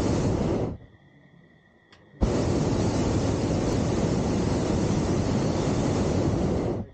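Hot air balloon's propane burner firing: a short blast that cuts off under a second in, then a longer blast that starts suddenly about two seconds in and runs for about four and a half seconds.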